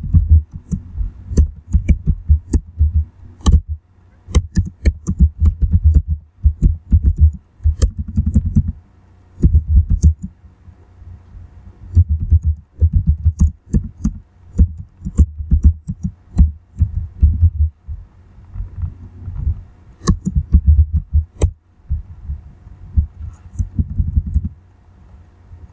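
Typing on a computer keyboard in short runs of keystrokes with brief pauses between them. Each keystroke lands with a sharp click and a low thud.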